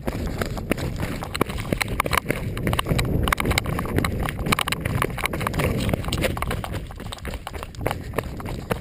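Running footsteps on a dry, stony dirt trail during a fast downhill run: a quick, irregular run of crunching foot strikes, over a steady low rumble.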